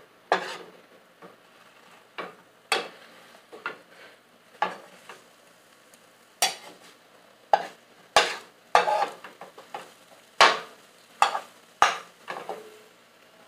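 A utensil stirring and scraping a crumbly mixture in a glass bowl, in irregular sharp strokes about once or twice a second.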